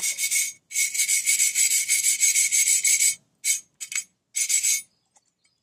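Hand wire brush scrubbing corrosion off a steel lawn mower blade in quick back-and-forth strokes: a long run of scratching for about two and a half seconds, then a few short strokes, stopping near the end.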